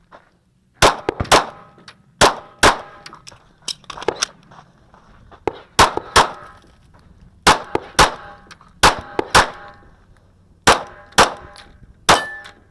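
Smith & Wesson M&P 2.0 9mm pistol fired in quick pairs of shots, about a dozen in all, starting about a second in. Each shot has a short ringing tail.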